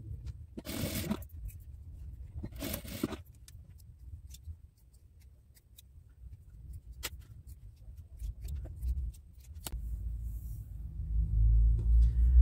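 Fabric and a zipper being handled on a table, with two short rustles early on and scattered small clicks of scissors trimming off excess fabric, then low bumps of handling near the end.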